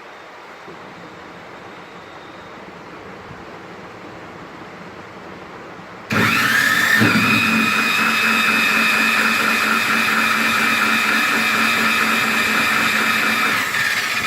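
A power-tool-type electric machine that drives the air-conditioner motor as a generator switches on about six seconds in, whining up to speed and then running steadily with a high whine, and winds down just before the end. Before it starts there is only a quieter steady hum.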